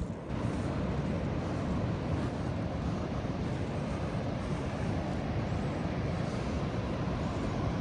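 Steady low rumble of sea waves breaking on a sandy beach, with wind buffeting the microphone.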